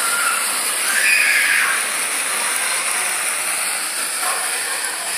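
Small gas burner flame hissing steadily, the hiss swelling briefly about a second in.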